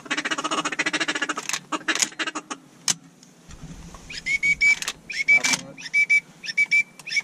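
Duck calls: a fast rattling chatter for about a second and a half, then, from about four seconds in, short whistle notes on one steady pitch, repeated about twice a second.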